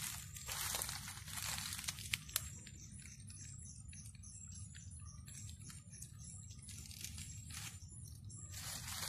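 Rustling and crackling of leaves and brush for the first couple of seconds, ending in a sharp click. After that, a steady, rhythmic high-pitched pulsing chirp of night insects carries on, broken near the end by more rustling.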